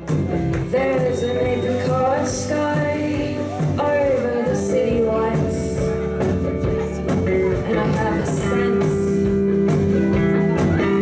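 Indie-pop band playing a song live: a woman singing over electric guitar and the rest of the band.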